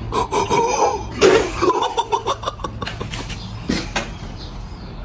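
A person coughing and spluttering: a strained vocal sound, then a sharp explosive burst about a second in, followed by a run of short rapid coughs and another burst just before four seconds in.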